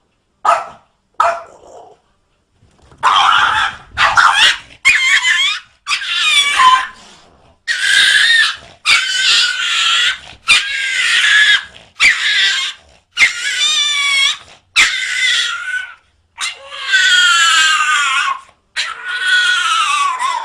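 A dog giving a long run of loud, drawn-out barking howls, each about a second long with short gaps between, some wavering and falling in pitch. A few short yips come in the first two seconds.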